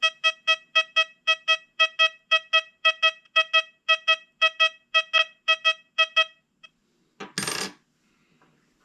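XP Deus 2 metal detector giving a rapid run of short, high-pitched beeps, about four a second and all at one pitch, as a 1932 Walking Liberty silver half dollar is passed repeatedly over its coil: the detector's high-conductor tone for silver. The beeping stops a little after six seconds, followed by a short burst of noise.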